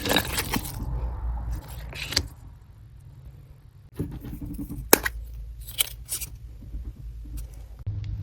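Small objects being handled: scattered rustles, sharp clicks and light jingling, over a low steady hum.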